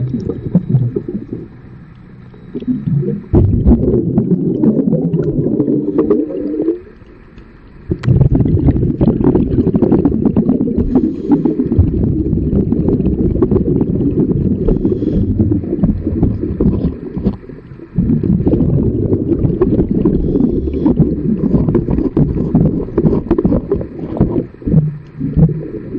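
Underwater rumbling and bubbling of a diver's exhaled breath from a scuba regulator, in long stretches broken by two brief quieter pauses.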